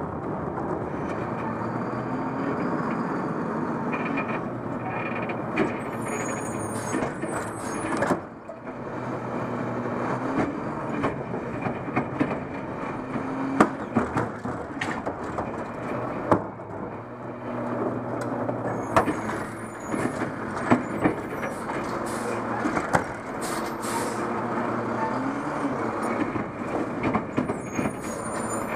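McNeilus automated side-loader garbage truck at work: the diesel engine runs and revs up and down repeatedly as the hydraulic arm grabs, lifts and tips a cart into the hopper. Clanks and knocks from the arm and the cart come through, with short air hisses.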